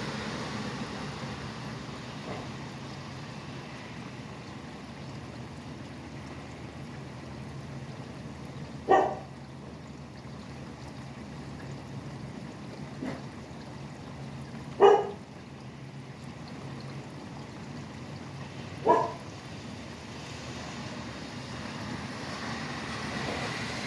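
Steady rain falling, with the hum of highway traffic behind it; a passing vehicle fades away at the start. A dog barks once every few seconds, three loud single barks about 9, 15 and 19 seconds in, with a couple of fainter ones between.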